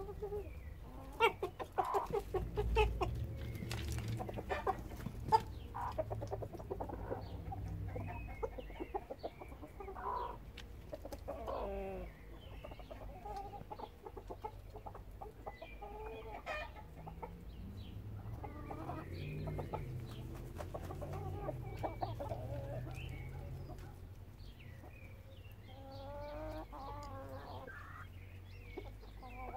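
A flock of chickens, hens and roosters together, clucking and calling on and off. There are a few sharp knocks in the first several seconds and a longer wavering call near the end.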